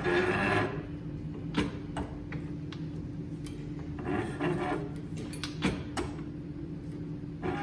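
Hand-lever press being worked to press a ball bearing onto a gearbox shaft through a tube on the inner race. Scattered sharp clicks and a few short scraping rubs come from the press and the bearing, over a steady low hum.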